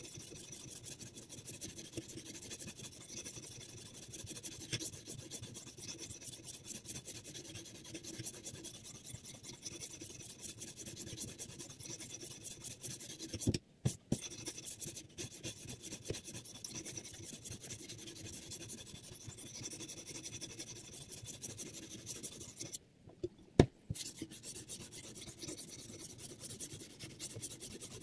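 800-grit sharpening stone on a guided knife sharpener's rod rasping back and forth along a knife edge in quick strokes. The grinding breaks twice, about halfway through and near the end, and there is a sharp click in the second break.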